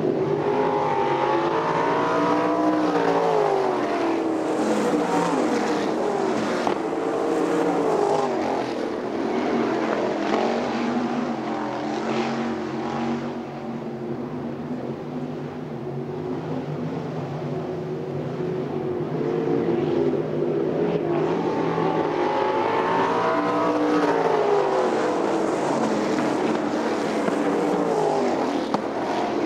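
Winged sprint cars' V8 engines running on a dirt oval. Their pitch rises and falls as the cars throttle and pass, and the sound eases for a few seconds about midway before climbing again.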